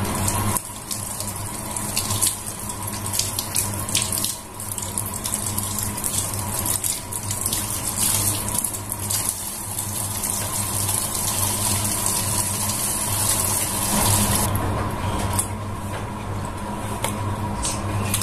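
Water running from a kitchen tap into a sink, with scattered splashes and clicks, until the flow stops about fourteen seconds in. A steady low hum runs underneath.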